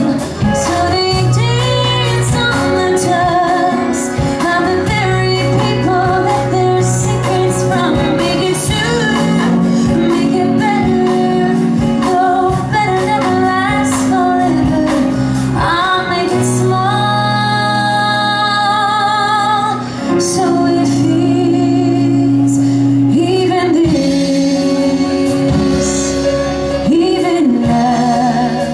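A woman singing a Broadway show tune live into a handheld microphone over instrumental accompaniment, holding one long note with vibrato about halfway through.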